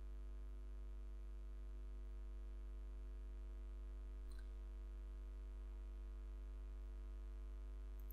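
Steady electrical mains hum with its stack of overtones, with one faint click about four seconds in.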